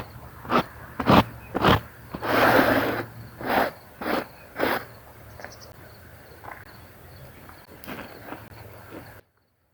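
Repeated scrubbing strokes on a wet carpet, about two a second, one of them longer. They thin out to a few weaker strokes about halfway through, and the sound cuts off suddenly near the end.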